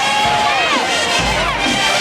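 Marching band music with a held note and several falling pitch slides, over a cheering stadium crowd.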